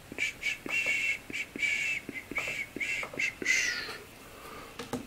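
Trading cards and plastic card holders being handled: a run of short, irregular squeaks with a few light clicks.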